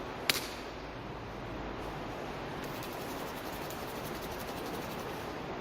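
Steady rushing of river water flowing through a culvert tunnel, with one sharp click about a third of a second in.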